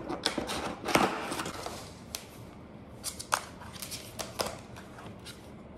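Cardboard box and molded-pulp packaging rustling and scraping as a boxed monitor is lifted out, busiest in the first couple of seconds. After that come a few separate light knocks and taps.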